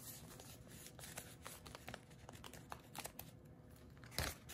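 Faint rustling and crinkling of plastic packaging bags being handled, with scattered small clicks and one louder rustle about four seconds in.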